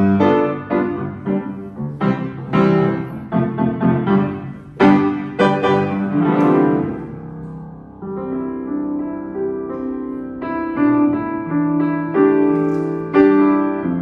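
Wagner W.2 upright piano being played: loud struck chords and runs, then from about halfway through softer held chords under a slower melody.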